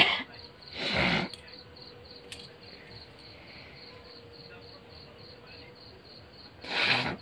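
Crickets chirping steadily in a fast, even pulse, under a woman's crying: a sharp sudden breath at the start, then loud sobbing breaths about a second in and again near the end.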